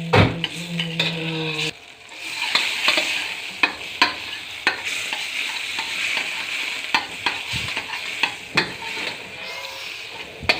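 Butter sizzling as it melts in a hot wok, stirred with a utensil that clicks and scrapes against the pan. A low steady hum cuts off about two seconds in.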